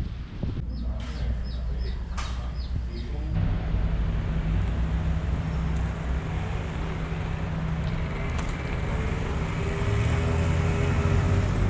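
An engine running steadily with a low, even hum, coming in about three seconds in after a short stretch of wind noise and a few high chirps.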